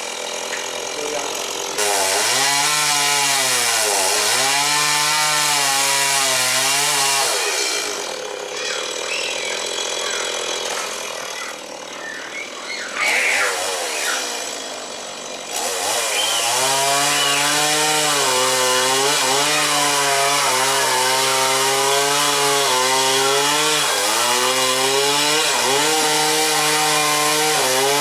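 STIHL MS 170 two-stroke chainsaw running at high revs and cutting wood, its engine note sagging and recovering again and again as the chain takes the load. It drops to a quieter stretch for several seconds in the middle, then revs up and cuts again.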